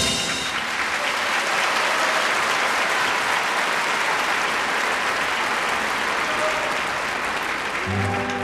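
Large concert-hall audience applauding steadily at the end of a dance number, with music starting up again near the end.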